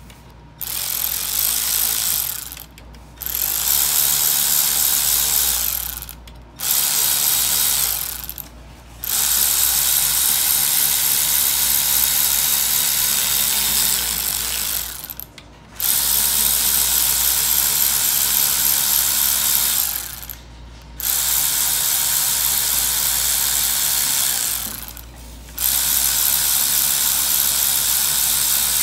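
Cordless electric ratchet with a hex bit, running in seven bursts of about two to six seconds with short pauses between. It is driving the handlebar clamp bolts into a scooter's gooseneck.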